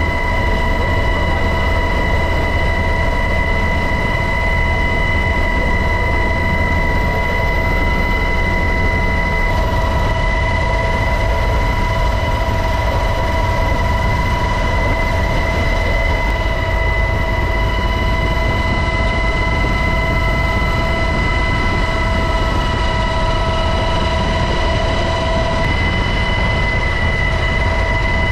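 UH-60 Black Hawk helicopter running steadily: a constant high whine made of several held tones over a heavy low rumble.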